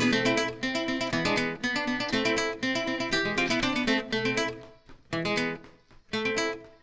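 Background music: acoustic guitar playing picked and strummed notes, briefly thinning to short pauses about five seconds in.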